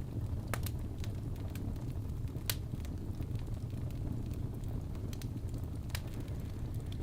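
Wood fire in a fireplace crackling: sharp pops, a handful of them loud, scattered over a steady low rumble.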